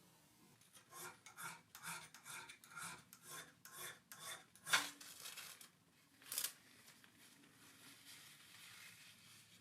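Rhythmic rasping strokes, about two or three a second, for several seconds, followed by two sharper, louder scrapes or knocks.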